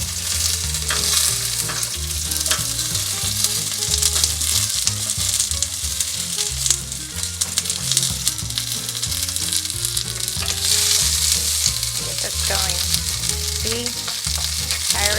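Chopped onions and garlic sizzling hard in olive oil in a pan that is too hot, with the light scrape and tick of stirring. Low bass notes that change pitch run underneath.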